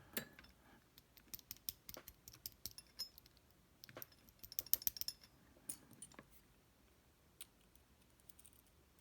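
Small metal lock pins being handled and set down on a tray: a quick run of light metallic clicks and ticks, thickest around four to five seconds in and thinning out after six seconds.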